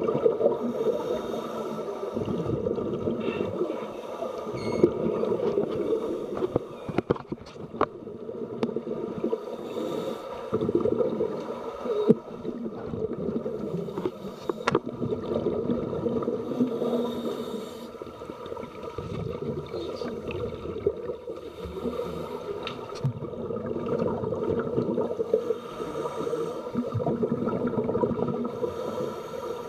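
Muffled underwater noise picked up by a camera submerged in a pool: a steady hum with irregular bubbling from scuba divers' exhaled air, and a few sharp clicks.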